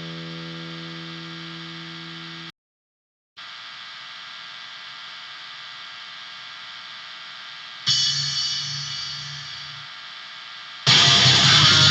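Harsh noise / black metal demo music. A distorted pitched drone fades, drops out completely for under a second, and returns as a thin hissing drone. A loud chord is struck about eight seconds in and dies away, then the full band crashes in loud, with heavily distorted guitars, near the end.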